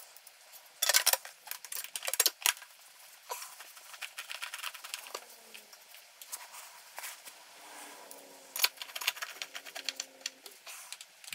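A chrome motorcycle side cover being refitted over the air filter and fastened with a hand tool: irregular light metallic clicks, clinks and taps, in small clusters.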